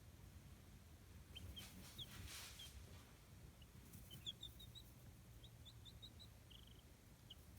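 Baby chicks peeping: faint, scattered short high cheeps, coming more often in the second half.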